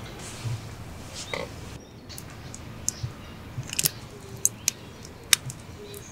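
Hands assembling a hotdog on a wooden board: soft taps of tongs laying meat on the bun, then a scattering of sharp little clicks and sputters as sauce and mayonnaise are squeezed from bottles over it.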